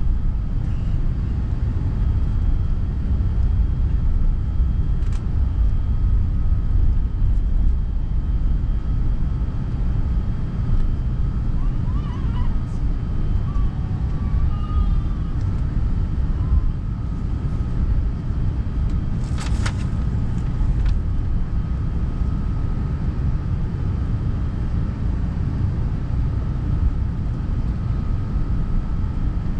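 Steady low rumble inside the cabin of an Airbus A380 with its Rolls-Royce Trent 900 engines running, a thin steady whine sitting over it. A short click comes about two-thirds of the way through.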